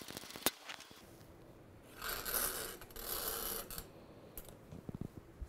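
A few light metal clicks from the socket tool at the fork cap, then the coiled fork spring of a BMW R90/6 scraping against the inside of the fork tube as it is drawn out in two pulls, about two seconds in.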